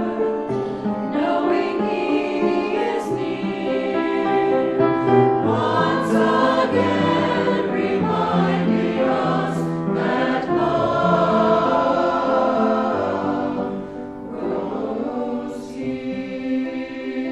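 A choir singing, several voices together holding long notes, with a brief lull about fourteen seconds in.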